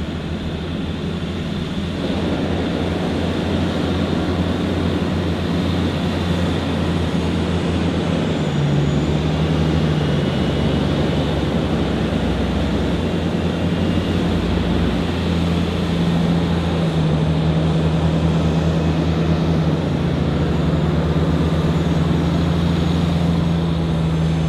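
Diesel engines of armoured military vehicles (M-ATVs and Humvees) driving past on a gravel road, a loud, steady drone under tyre noise. The drone grows louder about two seconds in, and the engine note shifts in pitch a few times.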